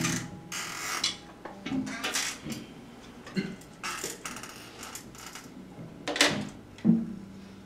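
Scattered handling noises from musicians between songs: a few short knocks, clinks and rustles, the loudest two a little after six seconds and just before seven.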